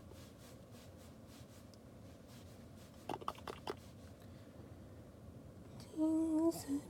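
Quiet low hum inside a stopped car's cabin, with a few faint clicks about three seconds in and a short pitched, hum-like tone near the end.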